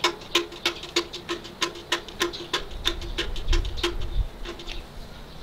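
Newborn Holstein calf sucking milk from a metal bucket: rhythmic wet smacking sucks about four a second, thinning out near the end. A low bump about three and a half seconds in.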